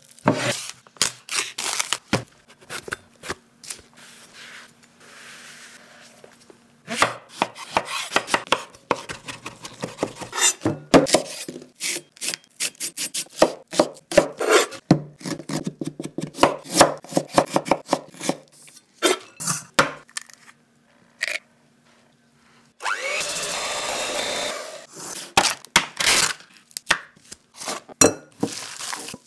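Close-miked food-prep sounds: raw minced chicken squished by gloved hands in a glass bowl, then long runs of rapid knife chopping of vegetables on a wooden cutting board. A steady rasping noise about two seconds long comes near the end, followed by more scattered knocks and mixing.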